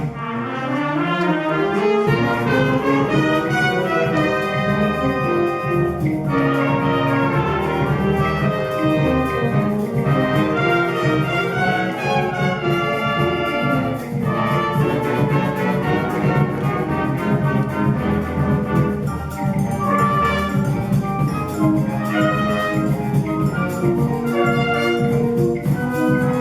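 Concert band playing a piece, with brass prominent, opening with a rising run of notes.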